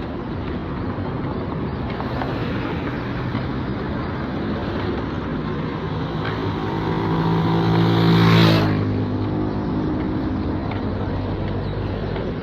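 A motor vehicle drives past close by on the road, over steady traffic noise. Its engine grows louder to a peak about eight seconds in, then drops in pitch and fades as it goes by.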